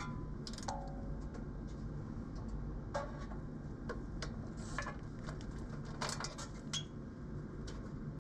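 Scattered metallic clicks and clinks of a hand wrench working the mounting bolts of a CFM56-5B variable bleed valve, irregularly spaced, over a steady low hum.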